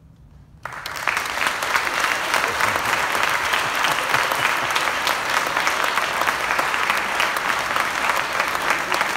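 Audience applause breaking out suddenly after a hush about half a second in, then holding steady, with hands clapping close by.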